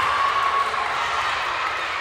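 Crowd of spectators making a steady din, many voices talking and calling out at once.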